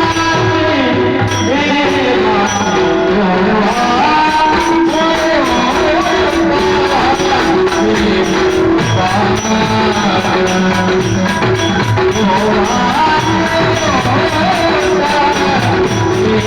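Devotional kirtan singing: a male voice sings a traditional kirtan tune over a steady sustained accompaniment. Quick, evenly spaced hand-cymbal strikes, about three a second, keep time from about four seconds in.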